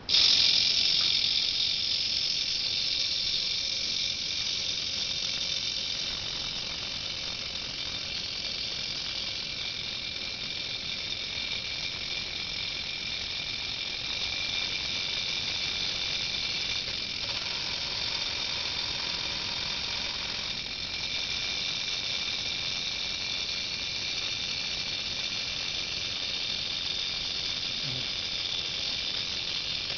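Small electric gear motor of a construction-kit model drill press running: a steady high-pitched whine that switches on abruptly and eases slightly over the first few seconds. About seventeen seconds in, a second lower hum joins for roughly three seconds.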